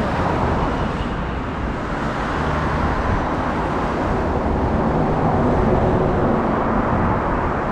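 Road traffic noise: cars going by on a street, a steady rush of tyres and engines that swells slightly midway.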